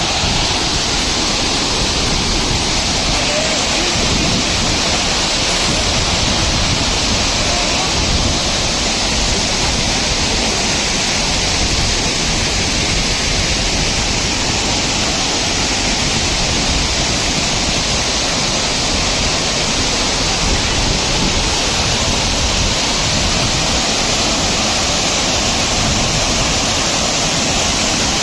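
Loud, steady rush of a large waterfall pouring over stepped rock, close by.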